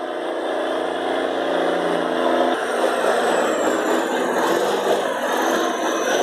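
Diesel engine of a log-laden cabover logging truck running as it crawls along, a steady droning tone. About two and a half seconds in, the sound changes to a rougher, noisier engine sound.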